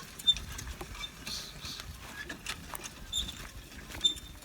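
Cattle-drawn plough working a field: scattered clicks and knocks with a few brief high chirps over a low uneven rumble.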